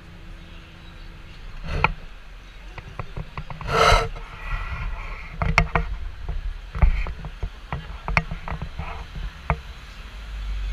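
Hong Kong double-decker tram's upper-deck body creaking and rattling, with many sharp clicks and knocks as the tram pulls away and a short hiss about four seconds in.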